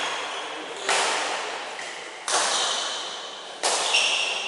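Badminton racquet hitting a shuttlecock three times, about a second and a half apart, each sharp hit echoing through a large hall.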